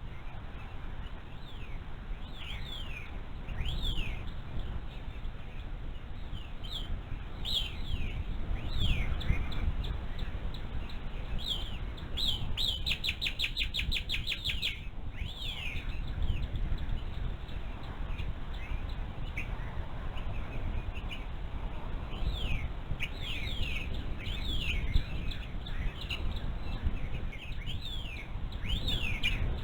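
Wild birds calling: repeated short, falling chirps throughout, and about halfway through a rapid trill lasting a couple of seconds, over a steady low rumble.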